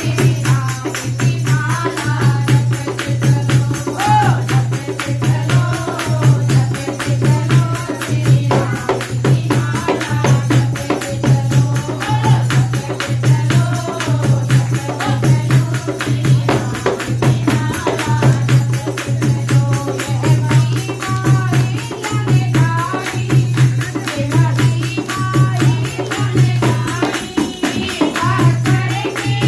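Women singing a Hindu devotional bhajan together, with a dholak-style hand drum keeping a steady low beat of about one and a half strokes a second and a hand tambourine jingling in time.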